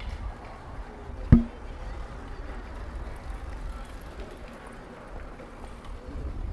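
City street ambience with a steady low rumble, and a single sharp knock a little over a second in.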